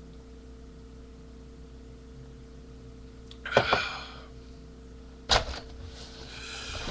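A person breathing hard over a steady electrical hum: a loud, noisy breath about three and a half seconds in, a sharp knock just after five seconds, and a rising breath near the end.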